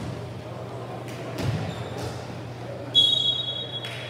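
A referee's whistle blown once, a single shrill blast about three seconds in that lasts just under a second. Earlier a ball bounces once on the hardwood gym floor, over a steady hum and background chatter in the gym.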